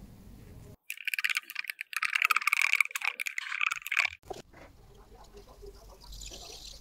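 Wooden stirring stick scraping and clicking around the inside of a clear plastic cup as black-tinted epoxy is mixed: a dense, rapid, scratchy crackle that starts about a second in and stops after about three seconds, followed by quieter handling of the cup.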